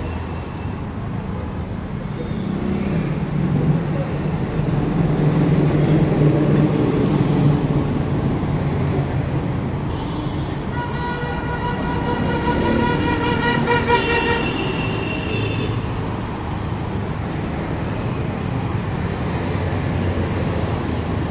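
Street traffic rumble, with a heavier vehicle passing a few seconds in. About halfway through comes a long, steady horn toot lasting around five seconds, its tone shifting higher just before it stops.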